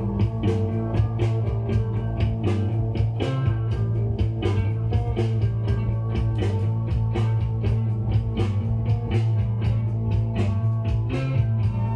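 Rock music with guitar, bass and drums keeping a steady beat, played from a record on a Pioneer PL-15R turntable.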